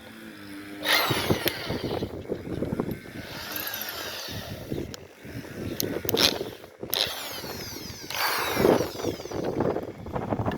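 Electric drill with a twist bit running in short surges, speeding up and slowing down as it drills into wood.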